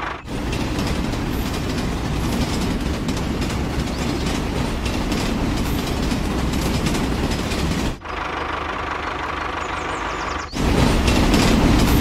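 Toy steam locomotive running along plastic track: a steady clattering rumble. It breaks off abruptly about eight seconds in and again near the end, where it comes back louder.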